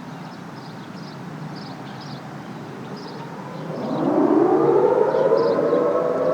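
Outdoor warning siren winding up for its monthly test, starting about three and a half seconds in. It is a rising tone with several overtones that climbs in pitch and grows loud, the start of a three-minute steady alert signal.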